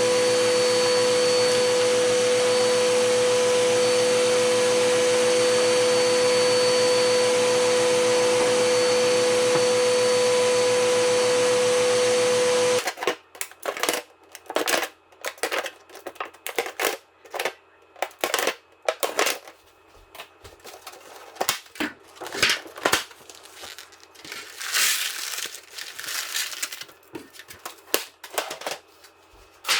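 Vacuum cleaner running steadily with a high whine, switched off abruptly about thirteen seconds in. After that comes a scattered series of light clicks and rattles with a brief rustling patch.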